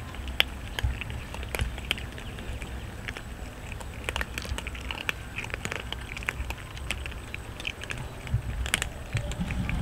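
Several cats crunching dry kibble: a busy, irregular run of crunches and clicks.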